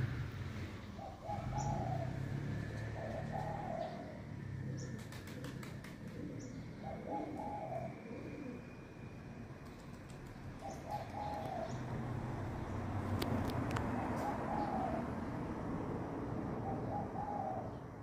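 A dove cooing: a short phrase of a few low notes, repeated every couple of seconds over a low background rumble.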